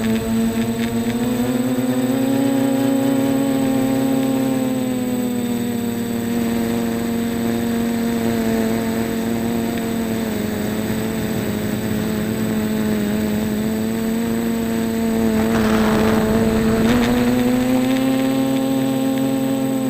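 Quadcopter's electric motors and propellers running in flight: a steady buzzing whine whose pitch rises and falls gently as the throttle changes. A brief rushing noise about 15 to 17 seconds in.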